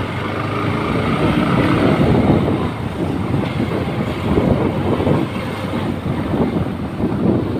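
Motorcycle running at low road speed, with wind rumbling and fluttering on the microphone.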